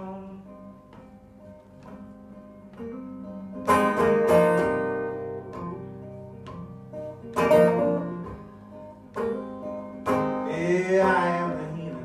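Acoustic guitar instrumental break, played live: chords ringing, with hard, loud strums about four seconds in, again at about seven and a half seconds and around ten seconds.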